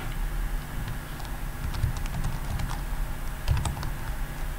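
Typing on a computer keyboard: scattered key presses, with a quick run of keystrokes about three and a half seconds in, over a steady low hum.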